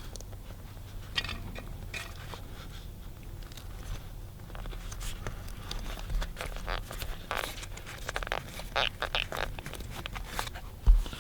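Scattered light clicks, ticks and scrapes of a new door lock cylinder and its metal retaining clip being worked into a car door, with a sharper knock near the end as it seats.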